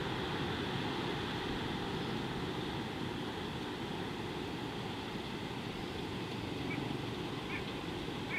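Steady wind and outdoor background noise on an open-air microphone, with a few faint, short bird calls near the end.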